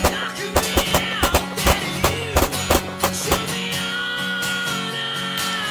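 Background music laid over a string of pistol shots fired at an uneven pace, most of them in the first three and a half seconds, then only a few while the music holds a long note.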